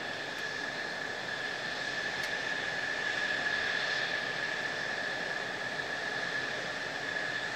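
Mitsubishi F-2 fighters' F110 turbofan engines running at low power on the taxiway: a steady high whine over a broad jet rush, swelling slightly a few seconds in.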